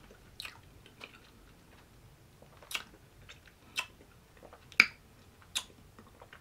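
Eating sounds as ice cream is tasted off a spoon: about six sharp, separate mouth smacks and clicks spread over a few seconds, with quiet between them.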